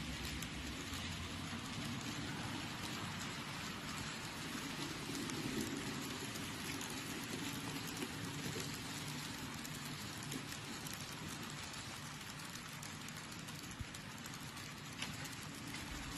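Model trains running on the layout: a steady rushing rattle of wheels on the track, with faint fine clicks and a low hum under it.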